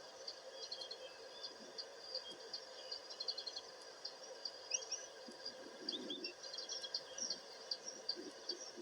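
Birds chirping: many short, quick high calls throughout, with a few sliding notes about five and six seconds in.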